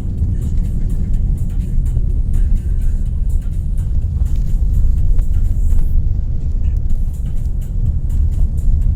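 Car driving at speed on fresh asphalt: a steady low rumble of tyres and engine.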